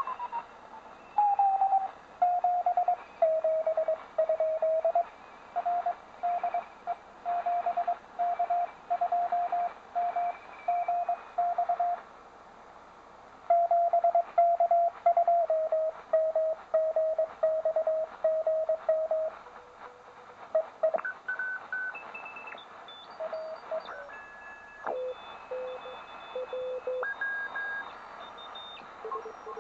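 Morse code (CW) received on a Tecsun PL-660 shortwave radio in the 7 MHz amateur band: a single beeping tone keyed on and off in dots and dashes over band hiss. After about 20 seconds the radio is tuned down the band, and weaker Morse signals at different pitches come and go.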